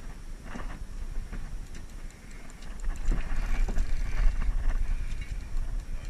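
Irregular light knocks and clicks of gear against the boat, over a steady low rumble.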